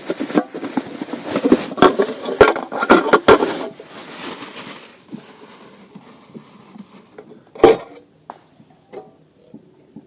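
Clatter of camping cookware and cups being handled: a run of quick knocks and rattles over the first four seconds, then one sharp knock near the end.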